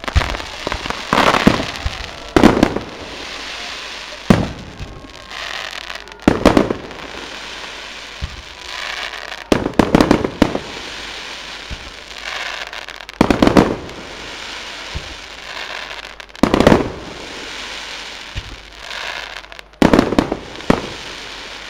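Aerial firework shells bursting in the sky, a loud bang every one to three seconds, several of them close pairs, with steady crackling and hiss from the burning stars in between.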